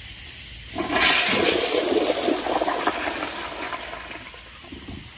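A 1992 Kohler Kingston Waterguard toilet flushes through its flushometer valve, fitted with a 1.6-gallon diaphragm and at full water pressure. About a second in, water rushes loudly into the bowl from the rim jets, swirls, and drains away, fading over the next few seconds.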